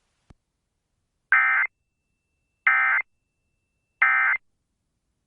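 Emergency Alert System end-of-message code: three short, identical bursts of buzzy digital data tones about 1.3 seconds apart, with silence between. The bursts signal the end of the alert.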